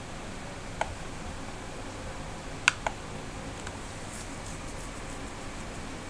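Computer mouse clicking: a single click about a second in and a quick double click a little under three seconds in, with a few fainter ticks later, over a steady faint hiss.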